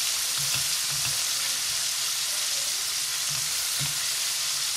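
Butter melting and sizzling in a stainless steel pot with a steady hiss, while a spoon pushes the pat around and knocks softly against the pan a few times. It is the butter being melted to start a gravy.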